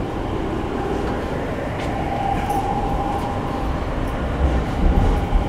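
Running sound inside a Sotetsu 10000 series electric train car: a steady whine from the Mitsubishi IGBT-VVVF inverter and traction motors over the rumble of wheels on rail. A few heavier low thumps come near the end.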